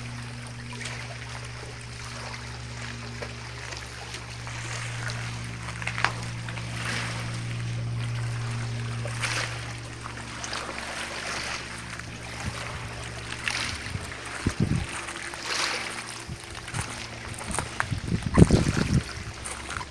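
Water splashing and lapping against a small inflatable boat, over a steady low motor hum that fades out about two thirds of the way through. Several low thumps come near the end.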